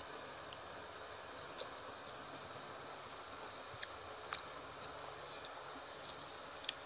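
Close-up chewing of cooked green amaranth stems and rice: soft, scattered wet mouth clicks and smacks, about eight in all, over a steady hiss.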